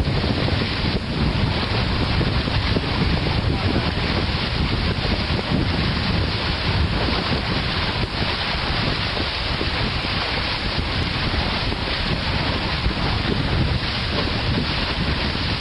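Wind buffeting the microphone over the steady rush and splash of water on open water under way.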